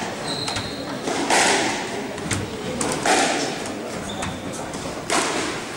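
Scattered knocks and thuds with a few short high squeaks and murmured voices, in the echoing hall of a glass-walled squash court.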